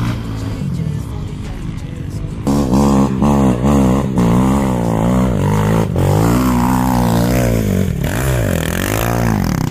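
Sport quad engines revving hard and unevenly, the pitch jumping up and down rapidly as the throttle is worked, louder from about two and a half seconds in, with music underneath.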